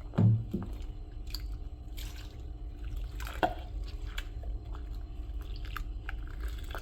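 Bathwater dripping and lightly splashing in a tub around a bathing cat, with a single low thump just after the start and scattered small drips after it over a steady low hum.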